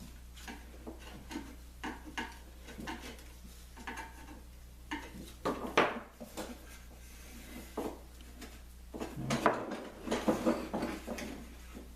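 Intermittent scraping strokes and light knocks of a hand tool working glue squeeze-out off a wooden table part. There is one sharp stroke about six seconds in and a busier, louder run of scraping from about nine to eleven seconds.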